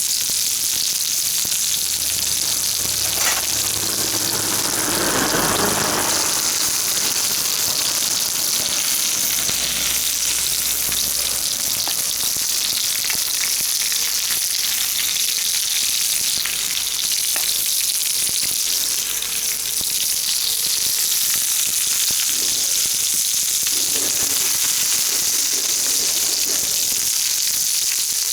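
Jumbo shimeji mushrooms sizzling in olive oil over a wood fire: a steady high hiss with a few faint clicks, and a short louder patch about five seconds in.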